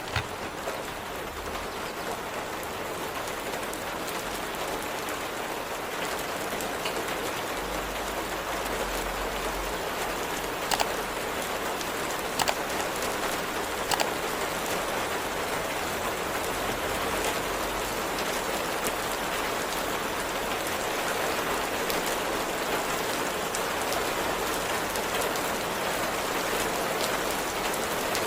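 Steady rain, an even hiss of falling rain with a few sharp clicks near the middle.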